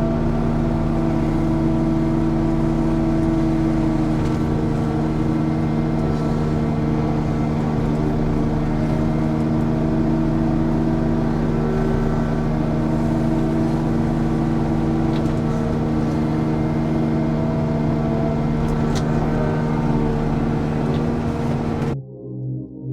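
Excavator engine and hydraulics running steadily under load, driving a Bushmaster 42-inch brush mower head through overgrown brush, with a constant drone that wavers slightly in pitch. It cuts off abruptly near the end into background music.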